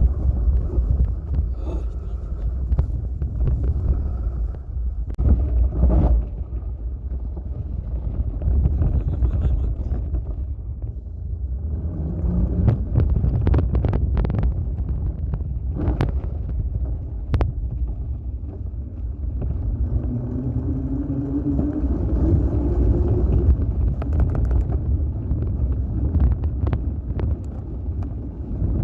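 Wind buffeting the microphone of a phone mounted on a moving bicycle, over the rumble of tyres on a forest track, with scattered sharp knocks and rattles from the bike.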